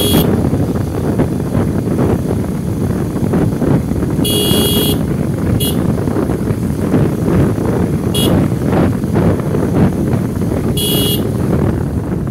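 Wind buffeting the microphone over a steady rumble, with a horn tooting five times in short high-pitched beeps, the longest about four seconds in and another near the end.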